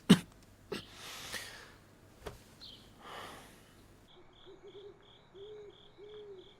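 A man's hard cough right at the start, then softer wheezy breathing. From about four seconds in, crickets chirp steadily at about three pulses a second, with a low warbling call near the end.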